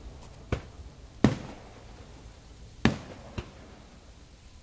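Aerial fireworks shells bursting in a series of sharp booms, four plain ones and a faint one, the loudest a little over a second in, with a low rumble between them.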